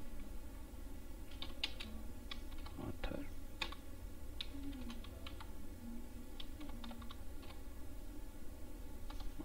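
Typing on a computer keyboard: scattered, irregular keystrokes with pauses between them, over a low steady hum.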